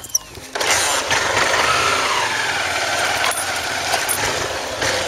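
Motorcycle engine revving as the bike pulls away and rides off, loud and steady from about half a second in, with a rushing noise over it.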